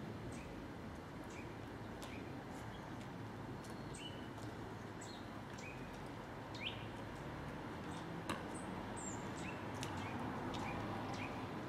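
Small birds chirping, short high calls repeated about once or twice a second over a steady low hum. Two short sharp clicks come about two-thirds of the way through.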